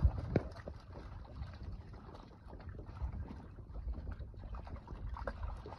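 Dozens of live carp sliding and flapping in a net chute into the pond, with many scattered wet slaps and knocks, the loudest right at the start. Wind rumbles on the microphone throughout.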